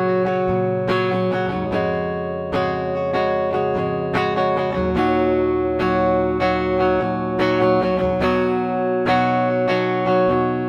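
Gibson SG Standard electric guitar played on its neck pickup with a clean tone. Chords are strummed and left to ring, with a new strike about every second.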